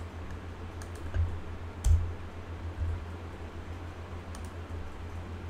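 Computer keyboard being typed on in scattered keystrokes, with a louder key strike about two seconds in, over a low steady hum.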